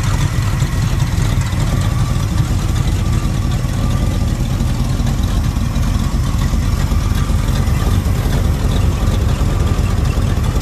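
1978 Chevrolet farm truck's V8 engine idling steadily.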